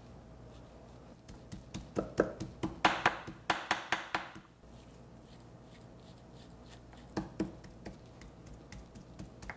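Chef's knife chopping raw beef rib meat on a wooden cutting board, mincing it into small pieces: a quick run of sharp knocks for about three seconds, then a pause and a few more knocks near the end.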